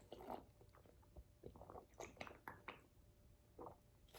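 Faint chewing of boiled crawfish: a scatter of small soft clicks and smacks.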